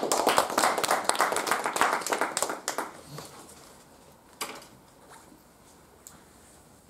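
A small group clapping briefly, dying away after about three seconds, followed by a single soft knock.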